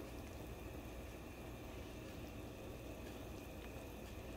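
Faint, steady background hiss with no distinct knocks or clinks.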